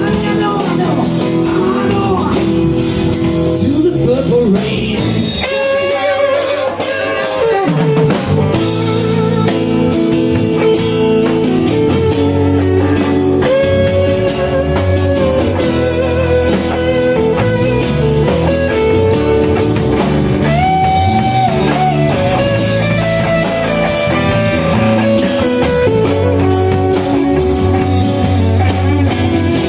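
Live band playing blues-rock: guitar over a drum kit, with long held melody notes.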